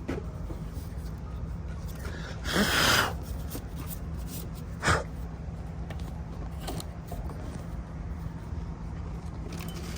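A steady low hum, with a short rushing noise about two and a half seconds in and a single knock about five seconds in.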